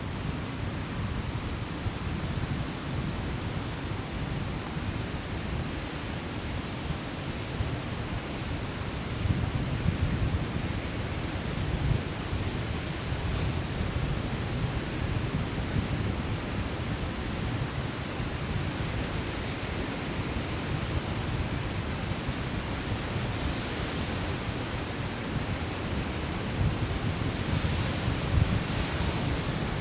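Wind rumbling on the microphone over the steady wash of Lake Michigan waves on a sandy shore, with a couple of louder surges of surf in the last few seconds.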